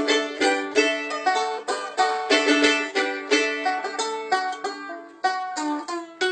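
A mandolin and a banjo playing a lively tune together, a quick run of plucked notes.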